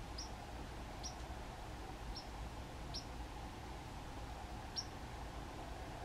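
Small songbirds giving short, high chip calls, five times, spaced irregularly about a second apart, over a steady background hum.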